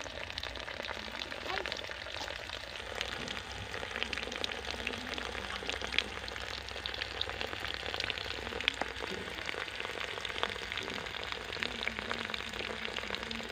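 Thin stream of water from a homemade mini pump's outlet tube splashing into a shallow muddy puddle: a steady crackling patter scattered with small drips and splashes.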